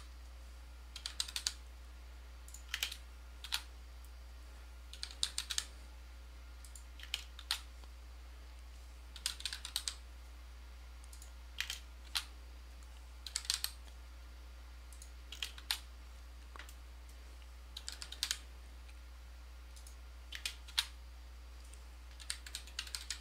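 Computer keyboard typing in short, irregular runs of keystrokes with brief pauses between, as the names of participants are tagged.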